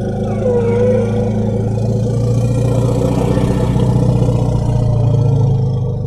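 Tyrannosaurus rex sound effect: a long, deep, steady growl that begins to fade at the very end.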